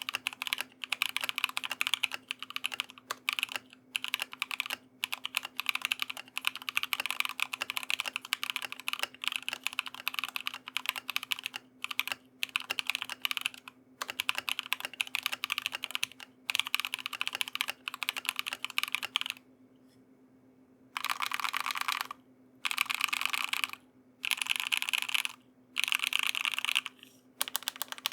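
Fast typing on a CMM Studio Fuji65 mechanical keyboard with SOTC linear switches on an aluminium plate, IFK Musubi keycaps and a paper-towel layer for dampening. Key strokes run continuously, stop for a second or two past the middle, then return as short bursts with brief gaps between them.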